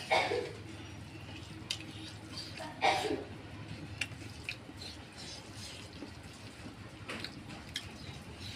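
Wet eating sounds of someone eating rice and curry by hand: chewing, two louder wet smacks (one at the start, one about three seconds in) and small clicks as fingers mix the rice on the plate.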